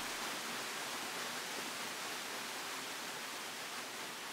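Steady, even hiss of a flowing mountain stream, with no other sound standing out.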